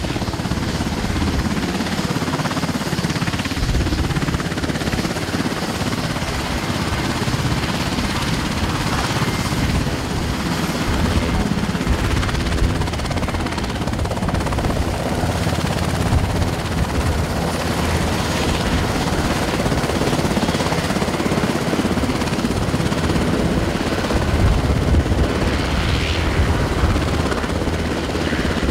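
Sikorsky CH-148 Cyclone helicopter running on the ground, its twin turboshaft engines whining and its main rotor turning with a steady, loud throb.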